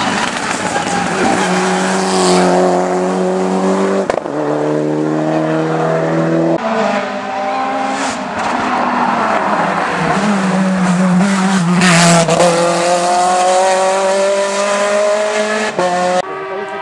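Race car engine at full throttle on a hillclimb, revving up and shifting up through the gears, with sharp pitch drops at each change about four times.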